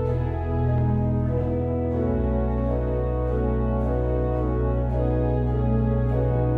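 Pipe organ playing sustained chords over deep pedal bass notes, the chords changing slowly.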